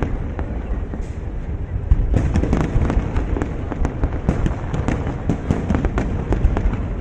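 Aerial firework shells bursting in rapid, overlapping succession: many sharp cracks and bangs over a continuous low rumble.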